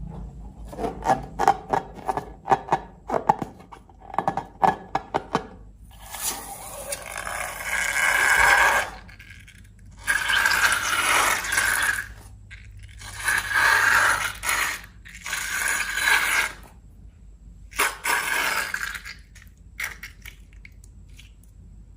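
Slime being worked by hand: a quick run of sticky clicks and pops for the first several seconds, then five longer scraping rushes, each one to three seconds long.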